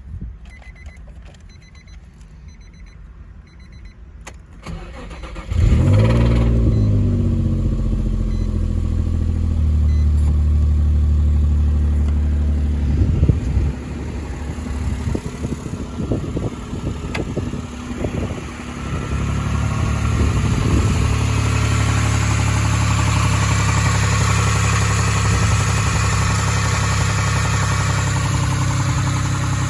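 Nissan 350Z's 3.5-litre VQ35DE V6 starts about five seconds in, flares up in revs and settles into a steady idle. The engine has rod knock.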